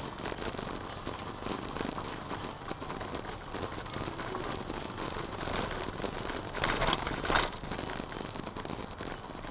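Car driving on a loose gravel road, heard from inside the cabin: a steady crackling rattle of tyres on stones and grit, with two sharper knocks about two thirds of the way through.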